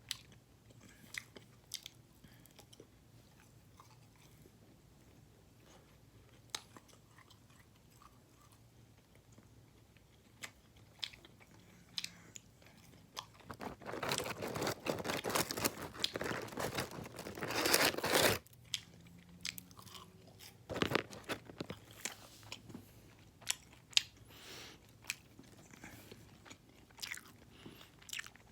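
Close-up chewing and crunching of fried, honey-glazed chicken bites, with scattered crisp clicks and, about halfway through, a louder stretch of dense crunching lasting around five seconds.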